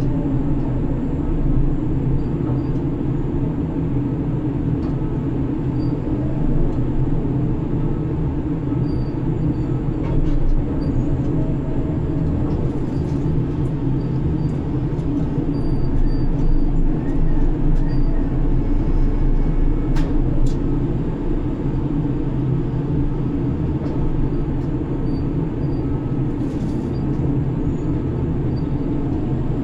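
Grab crane's machinery running with a steady, loud drone, heard from inside the operator's cab, with a single sharp click about two-thirds of the way through.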